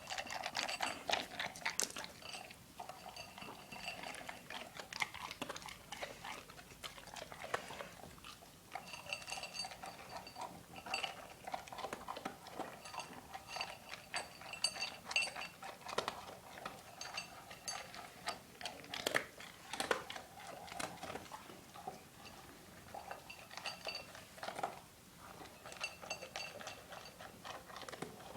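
A dog eating from a bowl: irregular crunching and chewing, with repeated clinks and short rings as the bowl is knocked.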